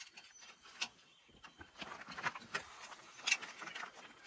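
Hands working parts under a ute's front bumper: scattered light clicks, ticks and rustling, with two sharper clicks, one about a second in and one near the end.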